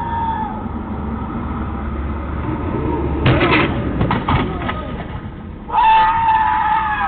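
Street noise at an intersection as an SUV drives through: a steady low rumble, a cluster of sharp knocks about three seconds in, and a long held tone of several pitches near the end.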